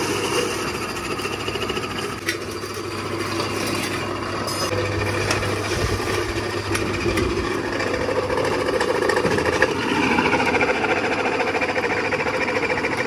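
A machine running with a fast, even clatter.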